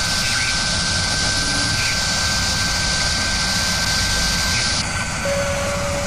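Sound-design whir for an animated machine-tool logo sequence: a steady, machine-like rushing noise with a thin high whine running through it. About five seconds in the upper hiss drops away and a lower steady tone comes in.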